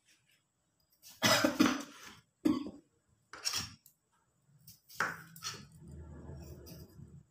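Kitchen knife cutting cucumber on a plastic cutting board: four sharp knocks with short scrapes, about a second apart. A low steady hum comes in for the last couple of seconds.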